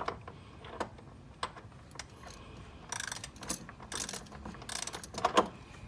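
Socket wrench ratchet clicking on a 10 mm bracket bolt: a few single clicks, then short runs of quick clicks from about halfway through.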